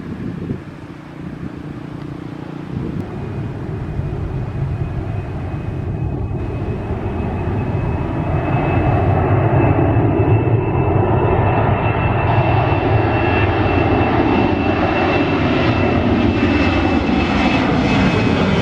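Jet airliner's engines growing louder over the first several seconds, then a loud steady roar with a high whine running through it.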